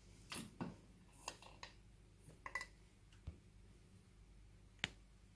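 A quiet room with a scattered handful of faint clicks and light taps, the sharpest click coming a little before the end.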